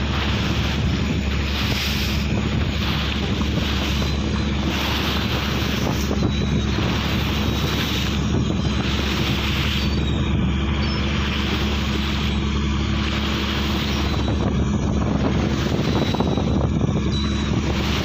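Steady drone of a boat's engine under wind buffeting the microphone and the wash of the sea in big waves.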